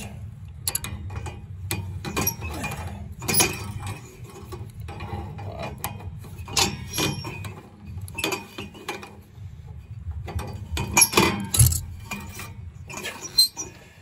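Steel tongue-and-groove pliers clicking, clinking and scraping on a thermocouple's brass compression nut and fitting as it is wrenched loose, in irregular bursts with the loudest knocks about 3 seconds and 11 seconds in, over a low steady hum. The nut is cross-threaded and stuck in the gas valve.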